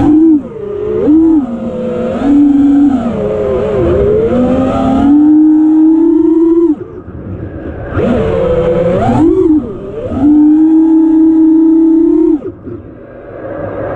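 A 5-inch FPV quadcopter's four Ethix Konasty 2407 brushless motors and props whine, heard from the camera on board, the pitch sliding up and down with the throttle. Twice, about seven and twelve and a half seconds in, the throttle is chopped and the whine drops away before it climbs again.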